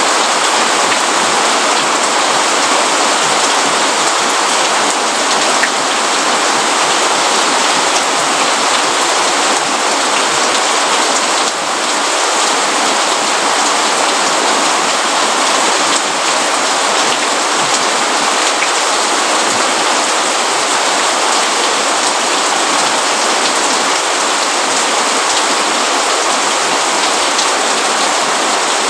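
Steady rain falling on a hard surface: a dense, even hiss of raindrops with no thunder.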